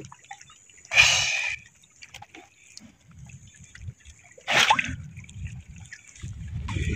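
Water splashing twice, a short splash about a second in and another a little past the middle, over a faint low rumble.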